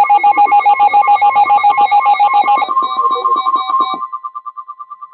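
Emergency alert tone: a loud electronic signal of several pitches pulsing rapidly, about ten beeps a second. About two and a half seconds in, the chord changes, and about four seconds in it fades to one faint pulsing tone.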